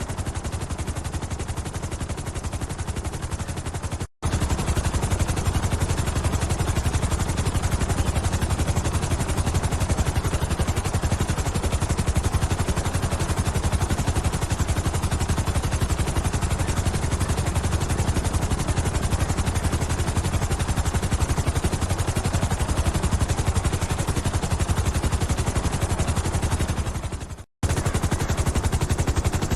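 Helicopter rotors beating in a rapid, steady chop, cut off for an instant about four seconds in and again near the end.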